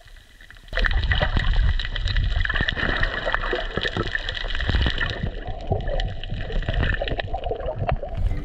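Water sloshing and gurgling heard by an underwater camera, with many small crackles and clicks over a low rumble, starting suddenly about a second in.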